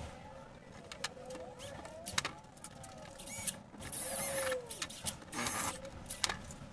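Cordless drill being fitted with a bit: drill bits clicking and clattering on the panel, and a few short whirs of the chuck being loosened and tightened, the loudest a little after the middle, rising and falling in pitch.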